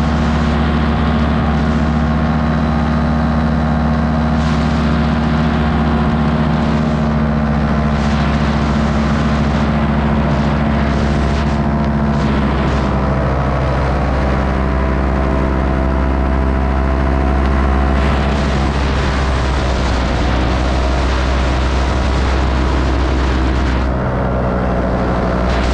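Electric motors and propellers of an FPV model aircraft running steadily, a droning hum of several tones with air rushing over the onboard microphone. The pitch shifts about halfway through and again a few seconds later as the throttle changes.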